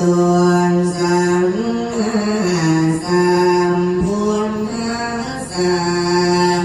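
A man's voice singing a Thai 'lae' chant for a tham khwan nak blessing. He holds long, steady notes and slides up and down between them.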